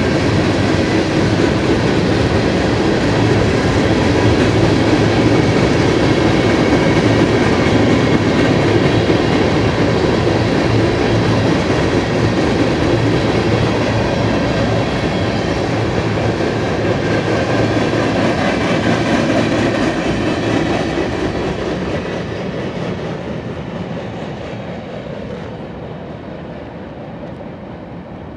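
Freight train of covered hopper cars rolling past close by: steady rumble and clickety-clack of steel wheels on the rail. The sound fades over the last several seconds as the end of the train moves away.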